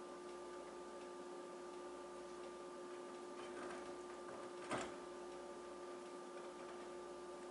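A person fitting snowshoes on a wooden deck: one sharp knock a little past halfway, after a few soft scuffs. Under it runs a faint steady hum with a few fixed tones and a light ticking.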